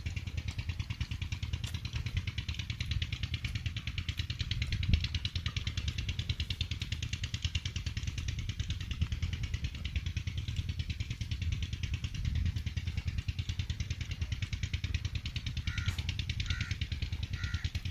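An engine running steadily with a fast, even pulse throughout. Three short high chirps come near the end.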